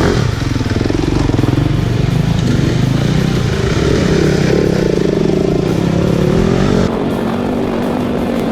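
Dirt bike engine running, its revs rising and falling. The sound changes abruptly about seven seconds in.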